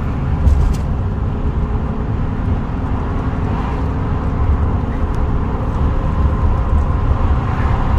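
Steady low rumble of a moving vehicle.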